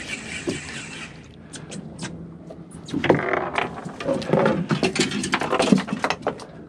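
Fishing reel cranked steadily with a whirring gear whine while a hooked fish is reeled up, stopping about a second in. Then come scattered clicks, knocks and rustling as the landing net is picked up and handled.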